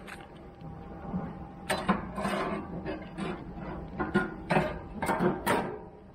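Handling at a barbecue grill: a string of sharp clicks and clatters from metal grill utensils and grate, with a plastic bag crinkling in between.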